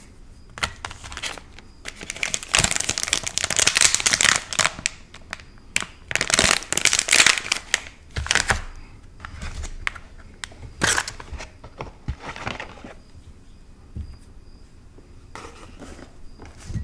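Clear plastic candy wrapper crinkling and crackling in irregular handfuls as it is unwrapped, loudest in the first half and dying away a few seconds before the end.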